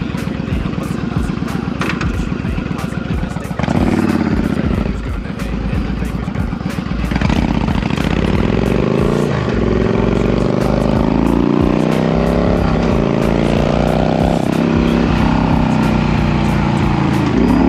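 Yamaha cruiser's V-twin engine idling with a steady pulse, then pulling away and accelerating through the gears; its pitch climbs and drops back at each of several upshifts.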